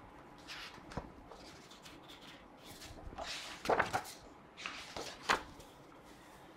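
Pages of a large hardcover picture book being turned and handled: a series of soft paper rustles and rubs, the loudest a little past halfway through.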